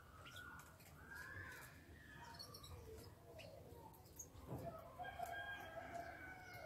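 Faint chirps and twitters of European goldfinches in an aviary. A longer, lower, steady call joins in from about five seconds in.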